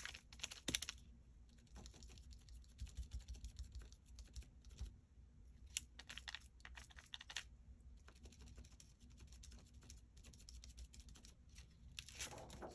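Faint, quick tapping of a cosmetic foam sponge pouncing paint through a plastic stencil onto card, in short bursts of taps.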